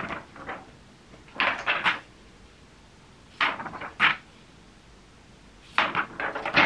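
Makeup brushes and products being handled and picked through: three short bursts of light clicking and knocking.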